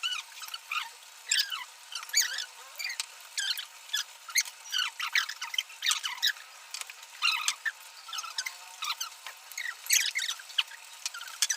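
Close-up eating sounds at a hotpot meal: a quick, irregular run of wet slurps, smacks and squeaky chewing noises, several a second. The sound is thin, with no low end.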